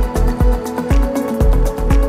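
Background music: an electronic dance track with a steady kick drum about twice a second and hi-hats over it.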